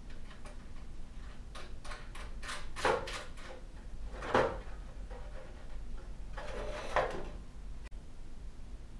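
Small metal parts of a headset jack clicking and scraping against a sheet-aluminium console panel as the jack is fitted into its hole by hand, with three louder knocks about three, four and a half and seven seconds in.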